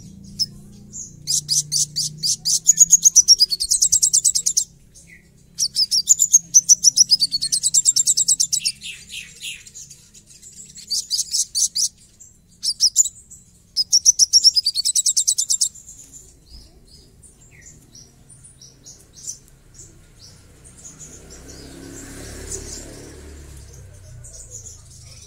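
Male olive-backed sunbird singing fast, high, rough trills in bursts of one to four seconds, some sweeping downward in pitch. After about two thirds of the time the trills stop and only scattered short chirps remain, with a soft rustle near the end.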